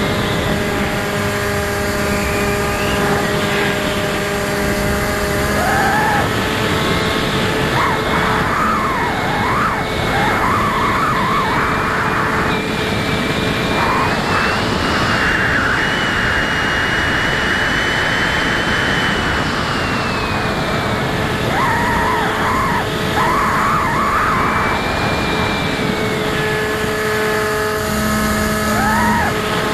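Electric motor and propeller of a Bixler RC plane, heard from a camera riding on the plane: a steady whine over wind rush. The pitch changes with throttle, rising to a higher whine in the middle and dropping back about twenty seconds in.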